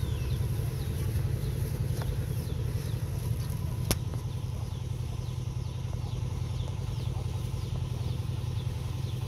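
A motor running steadily with a low hum, over short high falling chirps that repeat about twice a second; a single sharp click about four seconds in.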